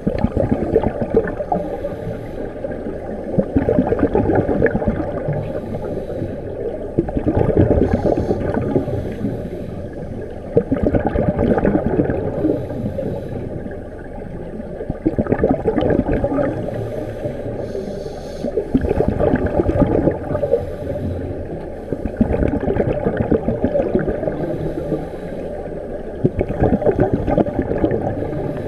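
Scuba divers' exhaled breath bubbling out of their regulators, heard underwater: a gurgling rush that swells and fades with each breath, about every three to four seconds.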